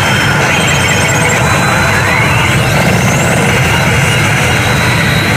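Electronic sound effects from a Hades pachislot machine over the loud, dense din of a pachinko parlour. About two seconds in, a sweep rises steeply in pitch as the machine plays its game-count addition effect.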